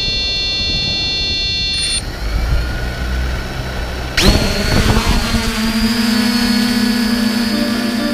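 3DR Iris+ quadcopter's electric motors and propellers whining at idle on the ground, then rising sharply in pitch about four seconds in as the throttle comes up for take-off, settling into a steady high whine in flight.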